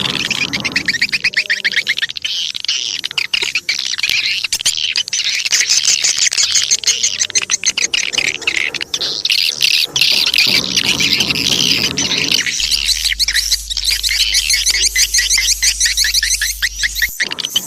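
Swiftlet lure call: a dense, continuous chatter of rapid, high-pitched swiftlet twittering and trills. This is the kind of recording played in swiftlet houses to draw the birds in to roost and nest.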